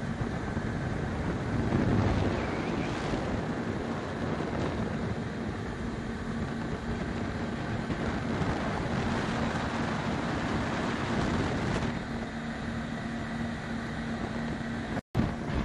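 Small open motorboat under way: the engine's steady hum beneath wind buffeting the microphone and the rush of water along the hull. The sound cuts out for an instant near the end.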